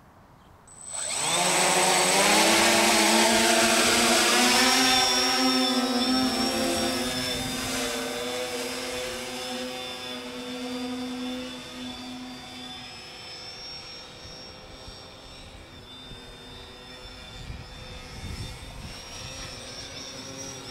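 Electric motors and propellers of a Wingcopter RC tiltrotor VTOL drone spinning up about a second in with a rising hum, under a 636 g payload. Loud for a few seconds, with a high motor whine over it, then fading gradually as it flies away.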